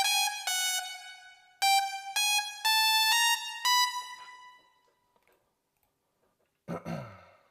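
A synthesizer lead playing a short melody of single bright, buzzy notes, each starting abruptly, that fades out about five seconds in. Near the end a brief sound drops in pitch.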